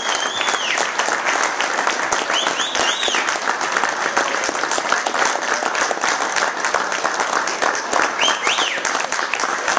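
Crowd applauding steadily, with a few sharp whistles rising and falling above the clapping.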